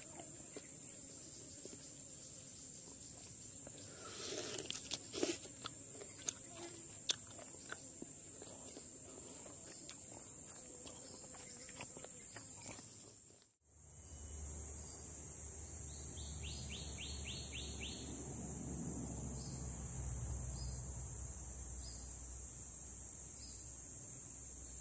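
Steady high-pitched drone of insects in the surrounding vegetation. A few sharp clicks and crackles come in the first quarter, and in the second half there is a low rumble and a short run of quick ticks.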